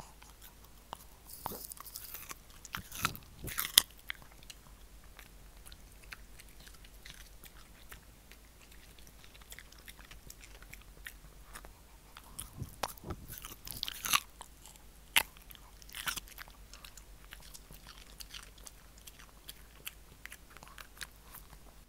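Shih Tzu biting and chewing a chew treat right at a small microphone, crunching in two bursts, about two seconds in and again about halfway through, with sparse quieter gnawing clicks between.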